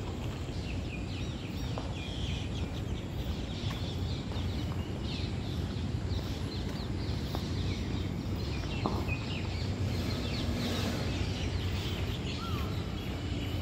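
Many short, high bird chirps and calls scattered throughout, over a steady low rumble.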